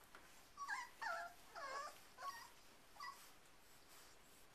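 Four-week-old Airedale terrier puppy whimpering: a run of about five short, high cries, the middle ones loudest.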